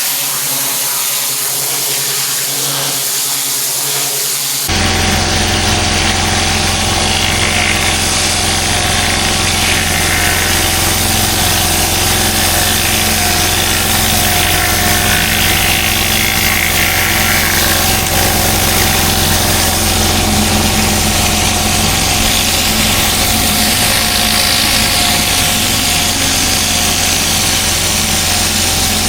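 Advert music for the first few seconds, then a sudden cut to a petrol engine running steadily, with a hissing rush over its hum.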